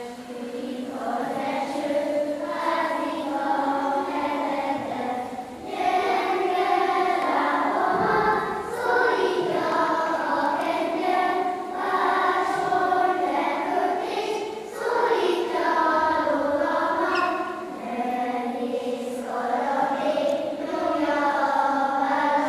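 Children's choir singing together, starting right at the beginning, the song broken into phrases with short pauses between them.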